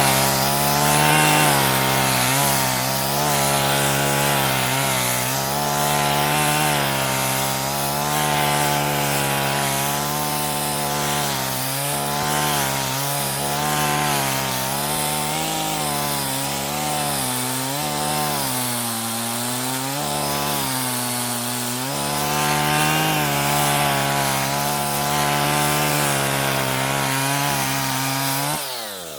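Petrol chainsaw ripping a pine log lengthwise into boards: the two-stroke engine runs steadily at high revs under load, its pitch dipping and recovering a little as the chain bites. Near the end the revs drop quickly and the saw winds down.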